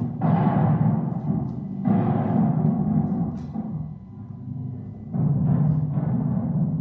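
Recorded air-raid sound effect of bombs exploding: three heavy booms, at the start, about two seconds in and about five seconds in, each dying away in a long low rumble.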